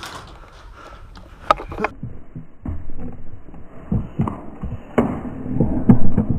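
A player's footsteps and gear movement picked up by a body-worn GoPro: a run of dull thumps and rustling that grows louder towards the end, with two sharp clicks about a second and a half in.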